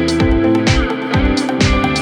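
Background music with a steady beat, a low drum hit about twice a second.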